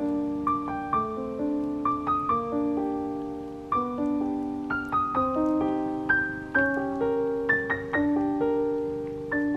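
Background piano music: a slow, gentle melody of single struck notes, each ringing and fading before the next.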